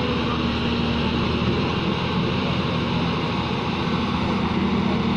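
Hyundai excavator's diesel engine running steadily with a low, even hum as the boom and bucket are moved.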